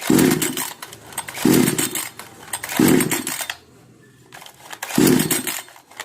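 58 cc two-stroke chainsaw being pull-started four times, each yank of the recoil starter a short rasping burst as the engine turns over, with a pause before the last pull. The engine does not catch: it still won't start after its carburettor idle screw was tightened two turns.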